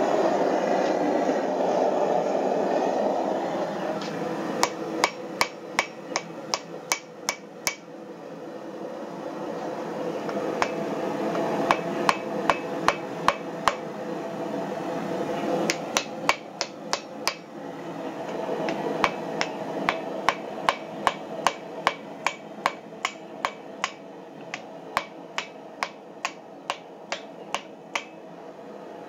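A blacksmith's hand hammer strikes a glowing hot steel axe head on the anvil: hot forging of the axe body. The blows come in four runs, about two to three a second, over a steady rushing noise that is loudest in the first few seconds.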